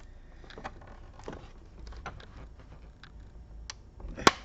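Plastic case of an HP 14 laptop being worked open around its edge: scattered small clicks and scrapes of the cover's clips, with one sharp, loud click a little after four seconds in.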